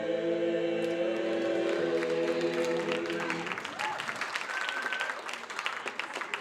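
An all-male a cappella group holds its final sung chord, which ends about three and a half seconds in, followed by audience applause.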